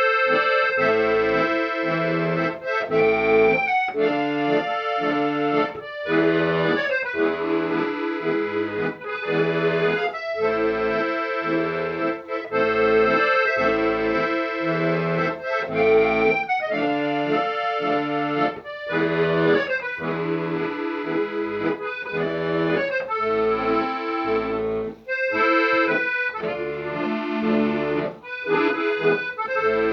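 Instrumental music: a melody in sustained chords over an even, pulsing bass line, with no singing.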